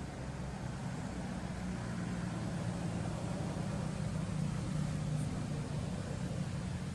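Steady low rumble of a motor running in the background over a constant hiss, swelling slightly in the middle.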